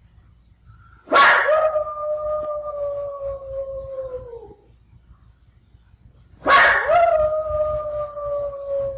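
A dog howling twice, each long howl starting sharply and then holding a steady pitch for about three seconds before dropping away; the second runs on past the end. It is the howling of a dog left alone for her life-long companion dog, which has been taken away to be put down.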